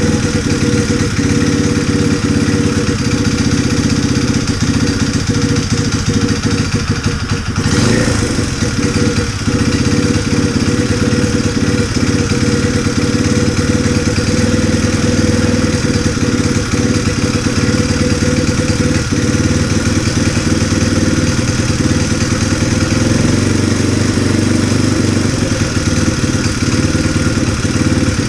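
Honda Jazz 50cc single-cylinder four-stroke engine running steadily, most likely at idle, just after a valve clearance (tappet) readjustment, being listened to for an abnormal noise.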